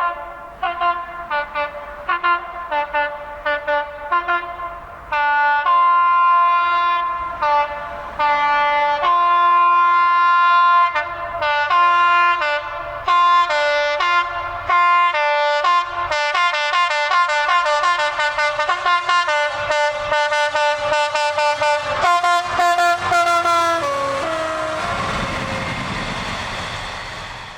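Train horns sounding a long sequence of blasts at several pitches, quick runs of short toots mixed with longer held notes, like a tune. Near the end the horns stop and a rushing noise fades away.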